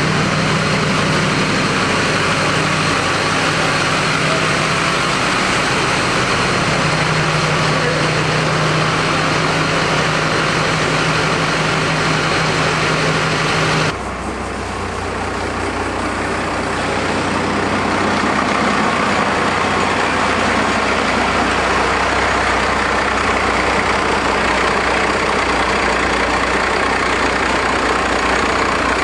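Diesel pickup engine idling steadily. The sound changes abruptly about halfway through.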